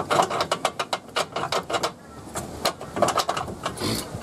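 Hand ratchet wrench clicking rapidly as a suspension bolt is turned, in two quick runs of about six clicks a second with a short pause about two seconds in.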